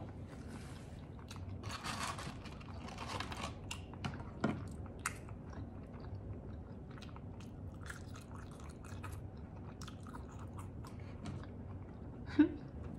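Close-up chewing of a mouthful of chicken sandwich and fries, with small wet mouth clicks. About two seconds in there is a rustle of the paper fry carton as a hand goes into it, and near the end a short hum of the voice.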